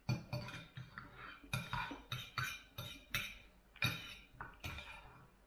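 Knife and fork clinking and scraping against a plate while cutting fried noodles with chicken: a quick, irregular run of about ten sharp clinks.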